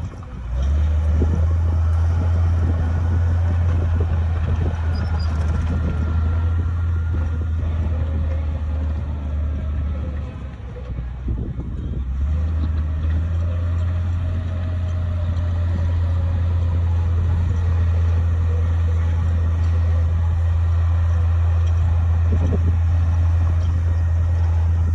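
Diesel engine of a Komatsu D58P bulldozer running steadily under load with a deep low hum, easing briefly about ten seconds in before picking up again.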